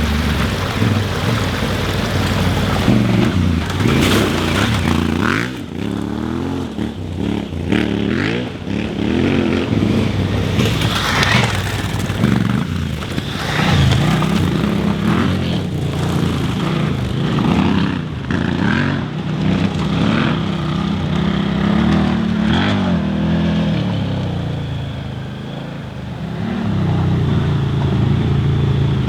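Twin-cylinder adventure motorcycle engine working along a rough off-road trail, its revs rising and falling with throttle and gear changes. Tyres and bike clatter and scrape over rocks and debris in short bursts now and then.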